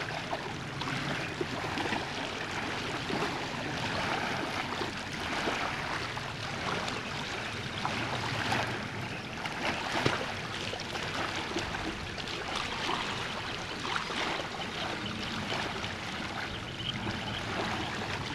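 Steady rushing, splashing noise of choppy lake water along the shore, with a single short knock about ten seconds in.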